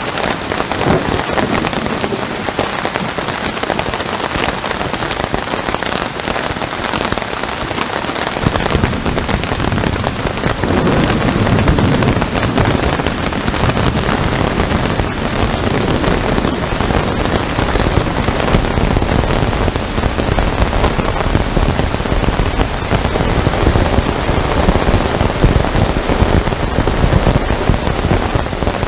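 Heavy rain falling steadily. A low rumble of thunder comes in about eight seconds in, swells a few seconds later and keeps rolling underneath.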